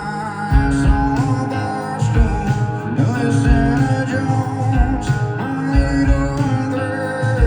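Live country-rock band playing a song: guitars over a steady drum beat.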